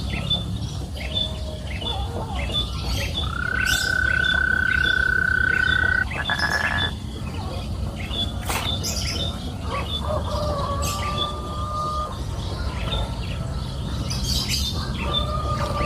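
Birds chirping, a short high call repeating about twice a second over a low steady background rumble. About three seconds in, a long steady whistle is held for nearly three seconds and ends in a brief buzzy rattle.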